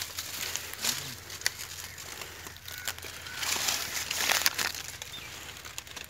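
Dry maize leaves and netting rustling in bursts as hands work through a bird net to free caught quail, the loudest spell about three and a half to four and a half seconds in.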